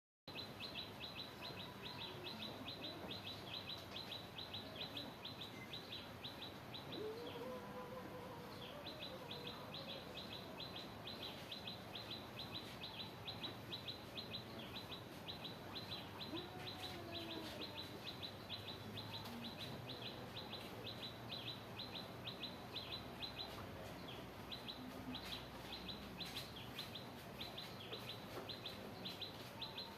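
High, short chirps repeated several times a second, pausing briefly about eight seconds in. A few fainter, lower calls sound in the background.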